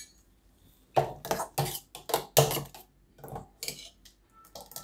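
Steel ladle clinking and scraping inside a stainless steel mixer-grinder jar while scooping out freshly blended bael fruit pulp. It is a run of irregular clinks that starts about a second in.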